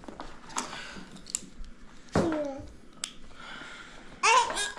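Scattered sharp small clicks and taps of things being handled, with a short high falling vocal sound from a small child about two seconds in and another brief high squeal near the end.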